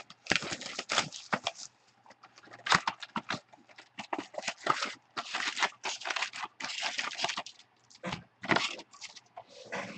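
Plastic wrapping being torn and crinkled by hand as a sealed box of football trading cards is opened, in irregular rustling stretches with sharp crackles.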